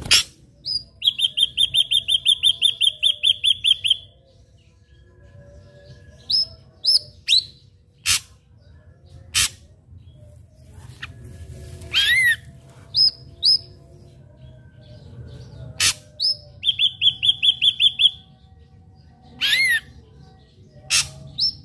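Ashy drongo singing: two runs of fast, evenly repeated whistled notes, each a few seconds long, and between them single sharp whistles, clicks and short rising notes.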